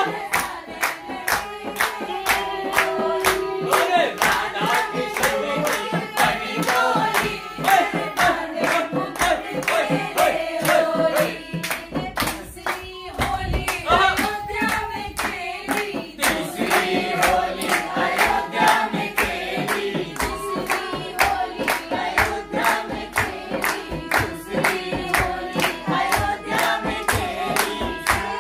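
A group of men and women singing a traditional Holi folk song (hori) together in unison, keeping time with steady rhythmic hand clapping.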